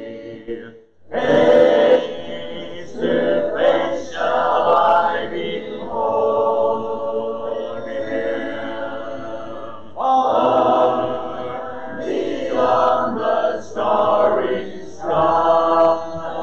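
Church congregation singing a hymn a cappella, men's and women's voices together, with no instruments. The phrases are long and held, with a short breath break about a second in.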